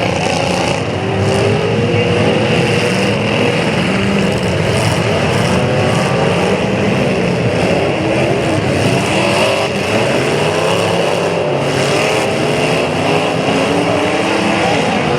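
Engines of several demolition derby cars running and revving at once, their pitches rising and falling over one another.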